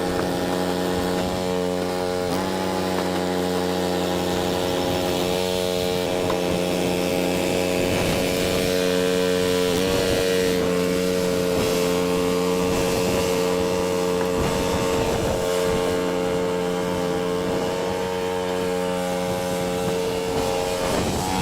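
Cub Cadet 2X 30-inch EFI two-stage snow blower's 357 cc engine running steadily at working speed. Its pitch sags briefly twice, about two and ten seconds in.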